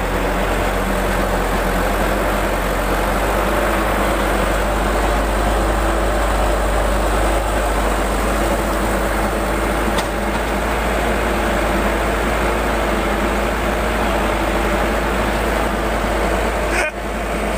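Loaded truck's diesel engine running steadily.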